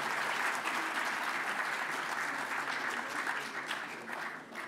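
Large seated audience applauding, a dense steady clatter of many hands clapping that thins out and dies away near the end.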